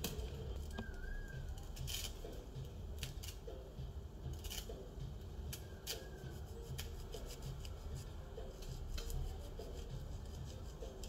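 Kitchen knife cutting through a lemon held in the hand: a scattered series of short, crisp clicks and snips over a low steady hum.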